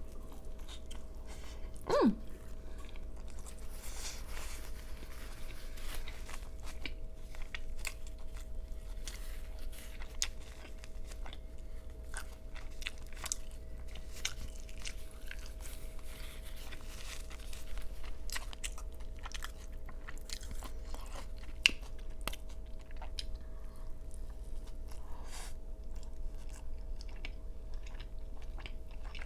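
Close-miked chewing of an Angus beef slider with mushrooms: a steady run of small crunchy bites and wet mouth clicks. About two seconds in there is a short falling hum from the eater.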